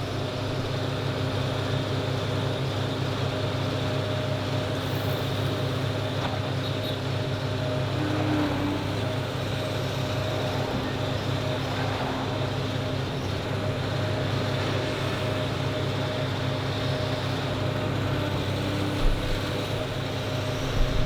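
Doosan excavator's diesel engine running steadily under work, with a couple of sharp knocks near the end.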